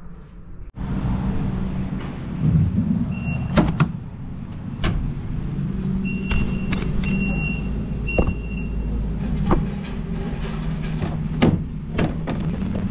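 Knocks and clunks of things being handled in the bed of a pickup truck under its cap, over a steady low hum. A thin high tone sounds on and off several times.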